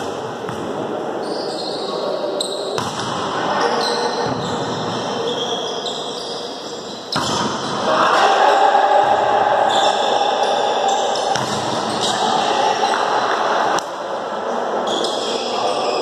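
Indoor volleyball game play echoing in a large gym hall: the ball being struck, with players' voices and court noise, loudest during the rally in the middle of the stretch.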